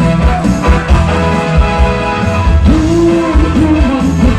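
Cha-cha-cha music from a live band, with a steady bass beat under held chords; a voice starts singing a wavering, held line about two and a half seconds in.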